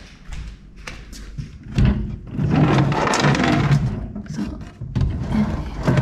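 Knocks and a louder rough sliding noise from wooden furniture doors and drawers being opened and closed, with some handling noise.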